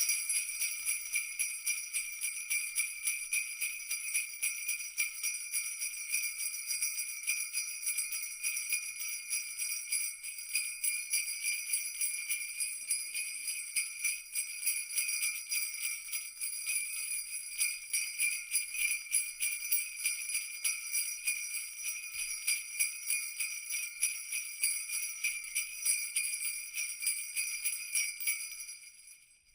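Many small temple bells jingling together, their clappers striking rapidly so the ringing pulses a few times a second; it fades out near the end.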